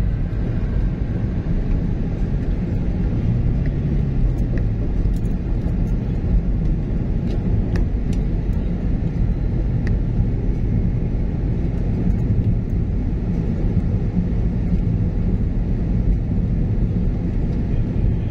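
Car cabin road noise: a steady low rumble of engine and tyres while driving, with the engine note rising and falling once about three seconds in.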